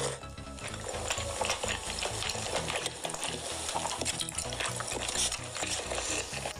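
Close-miked eating sounds of roast chicken torn apart by hand and chewed: a dense run of small wet crackles and clicks.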